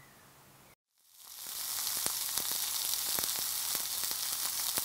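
Rib-eye steak sizzling on the hot grate of a charcoal grill: a steady hiss that fades in about a second in, dotted with sharp crackles and pops of spitting fat.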